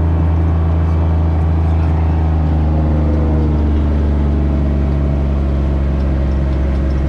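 Motor vehicle engine running steadily with a low, even drone, holding a constant speed with only slight changes in pitch.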